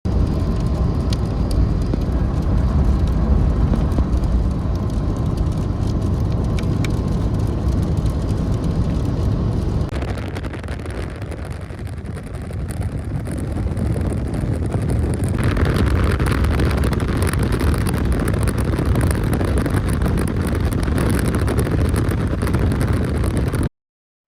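Loud, steady rushing noise of a vehicle on the move in a storm, road and wind noise heaviest in the low end. It changes abruptly twice, about ten and about fifteen seconds in, and briefly drops a little in between.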